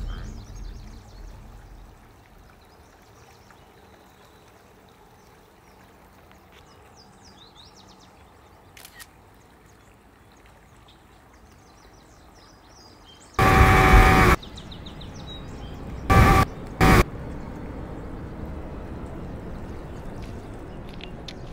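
Quiet outdoor ambience with small birds chirping, after a deep boom fades out at the start. About thirteen seconds in, a loud one-second blast with a steady pitched tone sounds, followed two seconds later by two short blasts of the same kind.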